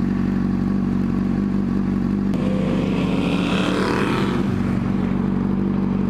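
Motorcycle engine idling steadily at a traffic light. A rushing noise swells and fades from about two and a half to four and a half seconds in.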